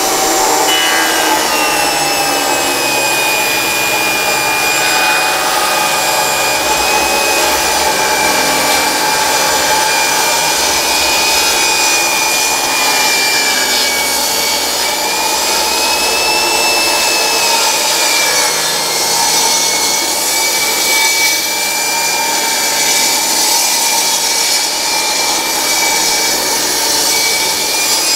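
RIDGID R45171 10-inch compact table saw with its 15-amp motor ripping a 2x6 pine board lengthwise along the fence. The high whine of the motor and blade drops in pitch as the blade bites into the wood just after the start, then wavers slightly under load over the rasp of the blade cutting through the pine.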